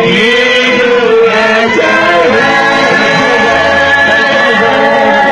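Loud singing over instrumental backing, with steady held notes under the voices.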